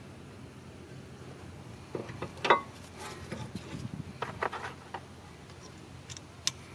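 Scattered clinks and knocks of metal brake parts as the rear brake caliper is handled, the loudest a sharp clack about two and a half seconds in, over a steady low hum.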